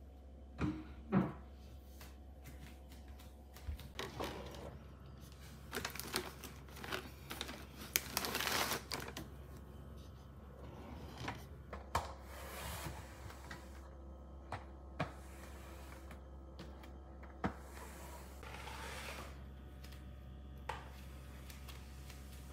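Wooden dining chairs being moved with a couple of sharp knocks about a second in, then a cloth being swished over a wooden floor in stretches, with scattered clicks and knocks between.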